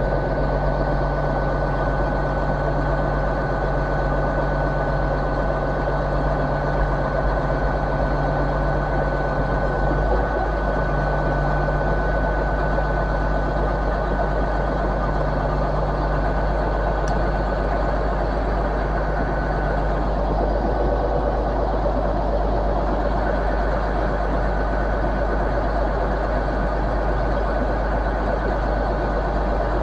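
GWR Hitachi Class 802 bi-mode train's underfloor diesel engines idling steadily at the platform, a constant low hum with a high whine over it.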